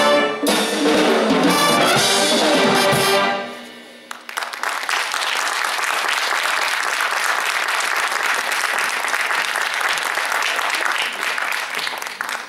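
Youth wind band playing the final bars of a Cuban-style piece, brass to the fore, stopping sharply about three seconds in. After a short pause, the audience applauds steadily until near the end.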